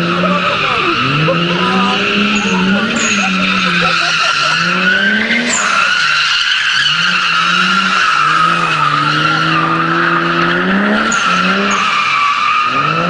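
Car drifting: a continuous tire squeal runs under the engine, which revs up and down again and again as the throttle is worked.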